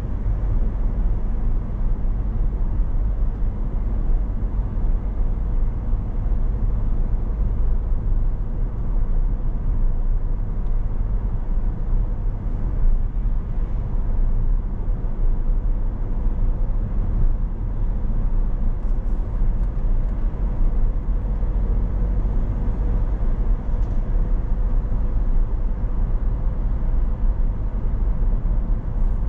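Steady rumble of a car driving along at road speed, engine and tyre noise heard from inside the moving car, heaviest at the low end with a faint steady hum.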